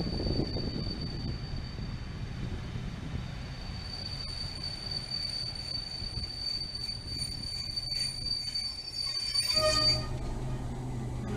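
Loco-hauled passenger train drawing into a station: a high, steady brake squeal over rumbling wheels, heard from an open coach window. About ten seconds in the squeal stops abruptly and a steady low hum follows.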